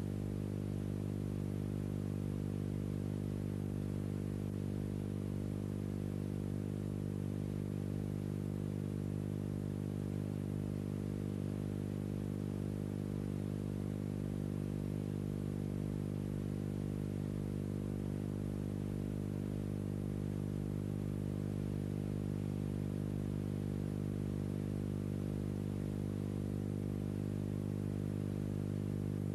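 A steady low hum with many evenly spaced overtones that does not change at all, with a faint hiss above it.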